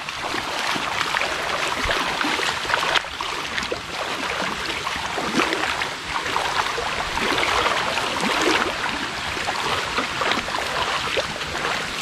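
Feet wading through shallow muddy water, a steady run of splashes and sloshes as several people walk through it.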